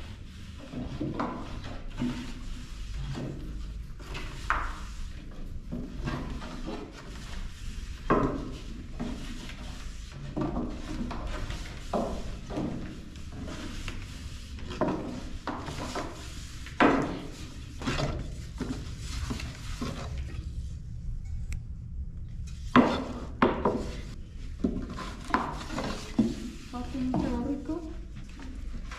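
Long thin wooden rolling pins rolling and knocking against low wooden boards as dough is rolled out into very thin sheets for tiri bread. There are irregular clacks and taps, several a few seconds apart, over a steady low rumble.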